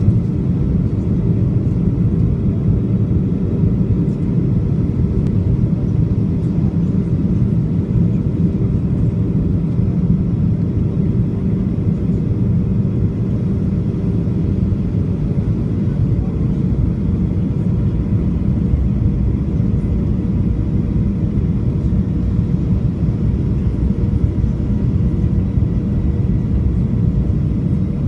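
Cabin noise inside a Boeing 737-500 on approach: a steady rumble from its CFM56 engines and the airflow, with a faint steady hum above it.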